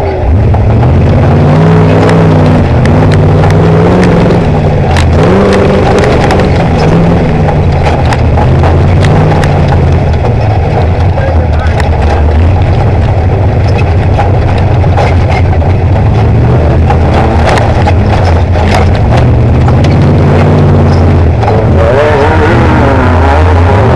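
Class 3 Early Ford Bronco race truck's engine running hard, its pitch repeatedly rising and falling as it revs, with many sharp knocks and rattles.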